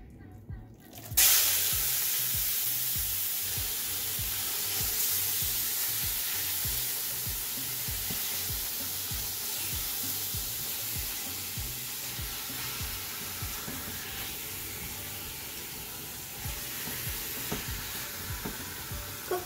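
Marinated raw chicken pieces dropping into hot olive oil in a stainless steel pot about a second in, setting off a sudden loud sizzle of frying. The sizzle holds steady and eases slowly while the chicken is stirred with a spatula.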